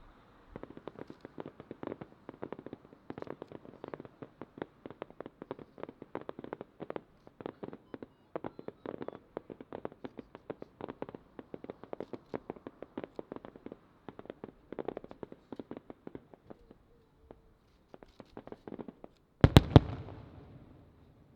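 Aerial fireworks bursting in a rapid, dense series of pops and bangs, several a second. About 19 s in, a much louder cluster of heavy booms rings out and fades away.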